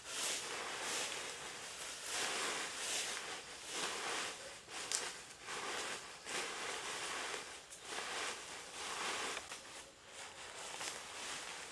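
Rustling and scraping, in uneven strokes roughly once a second, with one sharp click about five seconds in.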